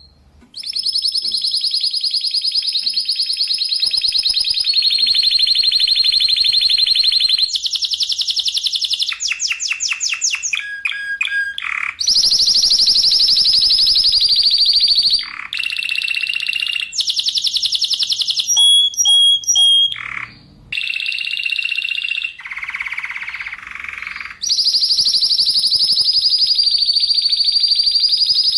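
Spanish Timbrado canary singing a continuous song of tight rolled trills and rapid metallic note series. Each phrase lasts a few seconds, with a brief break about three-quarters of the way through.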